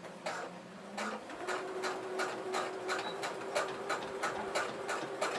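Electric sewing machine stitching slowly, about three stitches a second, with a steady motor hum that sets in after about a second and a half, as it sews a zipper into fabric.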